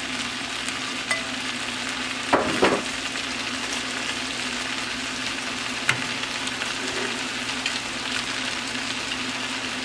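Chow mein noodles, chicken and vegetables sizzling steadily in a large metal pot on the stove, over a steady low hum. A brief louder sound comes about two and a half seconds in, and a light click near six seconds.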